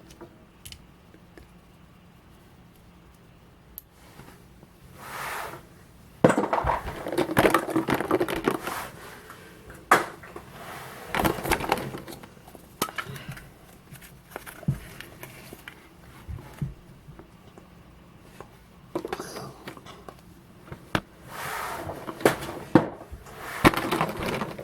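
Foil wrappers of chocolate surprise eggs being crinkled and torn off, in several bursts, with sharp clicks and cracks from the eggs and their plastic capsules being broken open.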